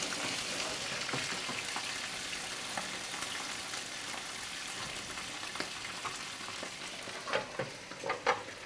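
Shellfish frying in oil in a pan, a steady sizzle, stirred with a wooden spoon. A few short wooden knocks near the end as the spoons are moved.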